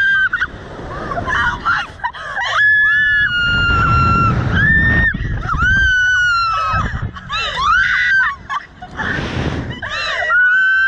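Two women screaming on a slingshot ride, a string of about six long, high-pitched screams, with some laughing between them. A low wind rumble lies underneath from the ride's speed.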